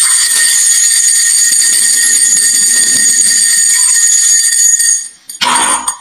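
A stream of glass marbles rolling and clattering down a wooden marble-run slope, a continuous loud rattle with a steady high ringing. It stops about five seconds in, followed by a short clatter as marbles drop.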